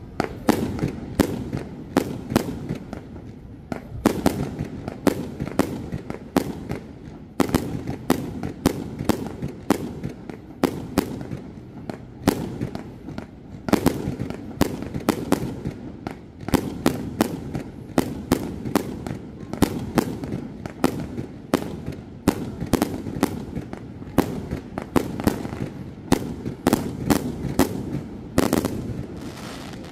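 Fireworks display going off: a dense, irregular run of sharp bangs and crackles, several a second, over a continuous low rumble of booms.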